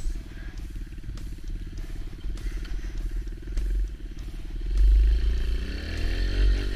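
Kawasaki KLX110 dirt bike's small air-cooled four-stroke single-cylinder engine running at low speed, its note rising as it revs up near the end.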